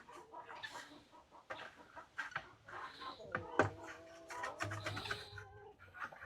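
Chickens clucking and calling, with a few sharp clicks and knocks in between; the loudest click comes about halfway through.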